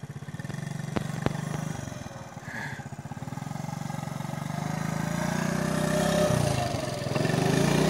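Honda ATC70 three-wheeler's small single-cylinder four-stroke engine running as it is ridden, a steady low putter that grows louder over the second half, dips briefly, then picks up again near the end.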